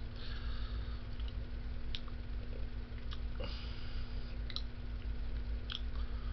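Steady low room hum with a few short mouth clicks and lip smacks scattered through it.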